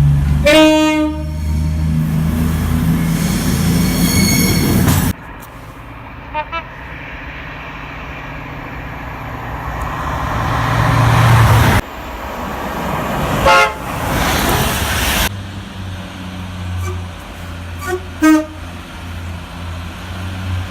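Train horns sounding in a string of separate recordings: a horn blast at the start, then several short blasts, over the rumble of trains running on the rail, with abrupt cuts between the recordings.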